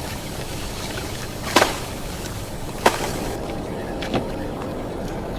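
Three sharp clicks or knocks, roughly a second and a half apart, over a steady low hum; the last knock is the softest.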